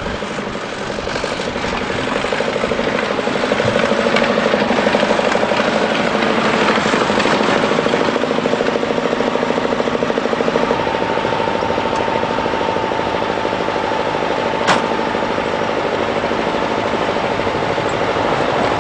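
Crawler tractor's diesel engine running close by with a dense, rapid clatter, getting louder over the first few seconds and then holding steady. There is one sharp click about 15 seconds in.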